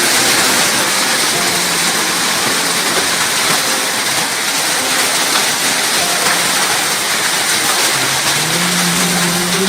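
Heavy rain pouring down in a loud, steady hiss. A faint low hum rises near the end.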